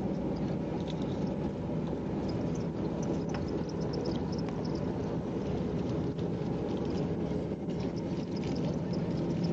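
Steady engine and road noise of a moving vehicle, a low hum that holds even without a break.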